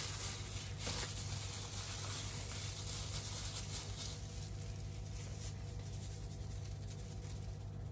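Quiet room tone: a low steady hum with a faint hiss, and a soft click about a second in.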